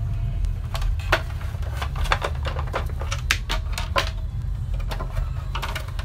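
Hard plastic housing of a National vacuum cleaner being handled and pulled apart around its motor: a dozen or so irregular sharp clicks and knocks, over a steady low hum.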